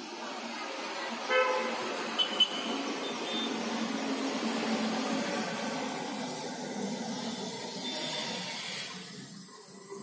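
Steady city road traffic, with a short vehicle horn honk about a second and a half in and a couple of sharp clicks just after it.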